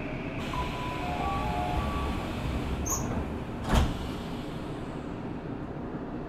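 Tokyu 5000 series commuter train running, heard inside the passenger car as a steady low rumble. There is one loud sharp clunk a little before four seconds in.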